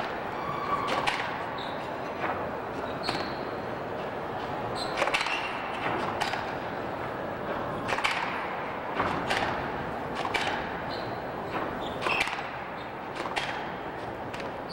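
Squash rally: racquets striking the ball and the ball hitting the walls, a sharp crack every second or so at an uneven pace, with short shoe squeaks on the court floor between the shots.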